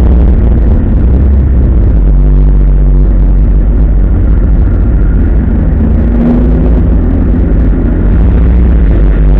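The straight-six engine of a 1970 Opel Commodore A racing car, heard from inside the cabin, running loud under load on track. The engine note shifts a couple of times as the car is driven through the corners.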